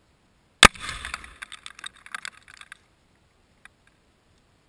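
Two pounds of Tannerite detonating in a car's trunk: one sharp blast about half a second in, followed by about two seconds of scattered crackling and clatter.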